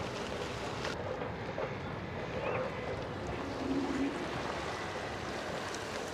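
Steady wind noise on the microphone over the wash of rippled open water, with a few faint, brief distant sounds about halfway through.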